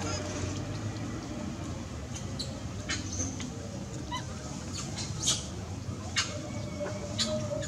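Scattered short, high squeaks and clicks from a group of long-tailed macaques, over a steady low hum.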